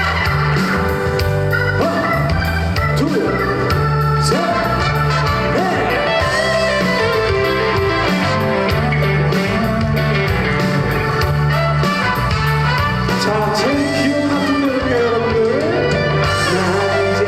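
Trot song performed live: a male voice singing over a backing track with electronic organ and a steady beat.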